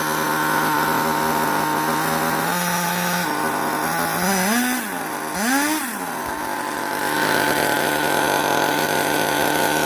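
Small two-stroke nitro engine of an RC car idling steadily, blipped twice near the middle, its pitch rising and falling back each time.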